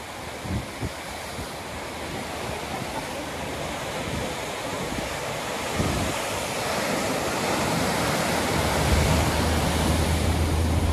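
Ocean surf breaking and washing over shoreline rocks: a steady rush of foaming water that slowly grows louder, with wind buffeting the microphone. Near the end a steady low engine hum comes in.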